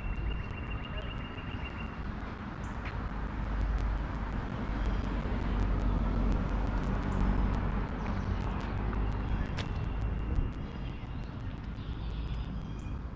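Street ambience: a steady low rumble that swells in the middle, with a bird trilling briefly in the first second or so and chirping again near the end.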